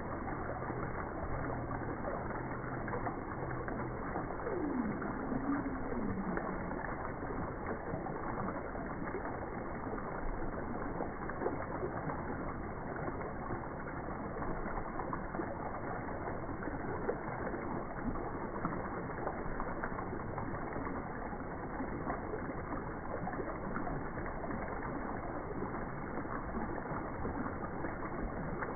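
Waterfall water rushing in a steady, unbroken wash, with one short, low sliding call about five seconds in.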